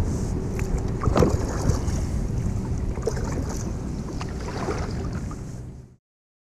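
Kayak paddling: paddle strokes in the water with wind buffeting the microphone, and a few sharp knocks and clicks. The sound cuts off abruptly near the end.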